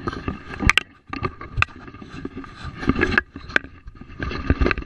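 Irregular knocks, clunks and scrapes in a small fishing boat as gear is handled, over wind and water noise.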